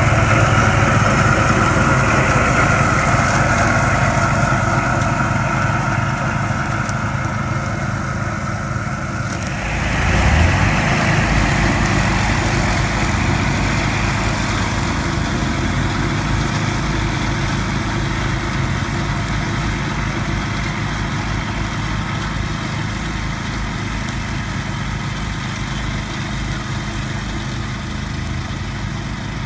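Engine running steadily. About ten seconds in, its sound shifts, with a brief low surge and a change in tone, then runs on evenly, slowly getting quieter.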